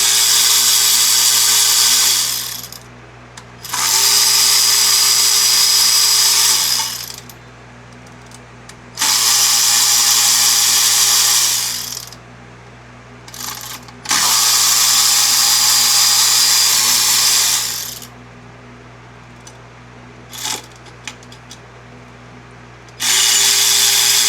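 Cordless power tool running in five separate bursts of a few seconds each, a steady motor whine that spins up at each start, backing out the small E8 inverted Torx bolts that hold the oil cooler on a Pentastar V6.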